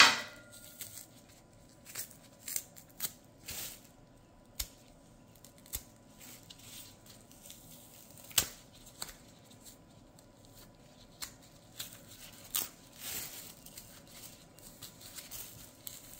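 A green fig (unripe banana) being peeled by hand with a knife: the thick peel is cut and pulled away in short tearing and scraping sounds with scattered clicks, a sharp click right at the start and a longer scrape about thirteen seconds in.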